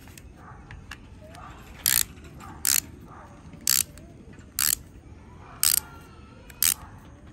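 Plastic toy spin-top launcher gun making six short, sharp ratcheting clicks about a second apart.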